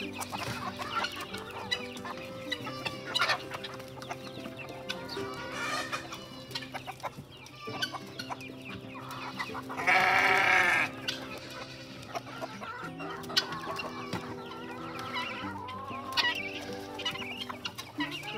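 A flock of chickens clucking, over background music. About ten seconds in, one loud animal call lasting about a second stands out.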